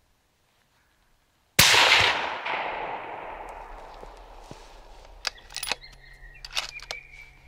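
A single rifle shot about a second and a half in, loud and sharp, with its report echoing and dying away over several seconds; a few sharp clicks follow near the end.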